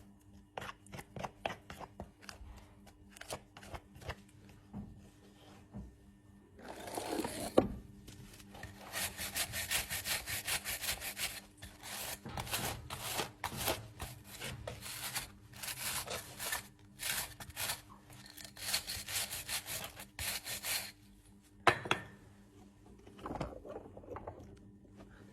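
Farrier's tools scraping and rasping a horse's hoof: short scattered scrapes at first, then a long run of quick, regular rasping strokes in the middle. Two sharp knocks stand out, one before the strokes begin and one just after they stop.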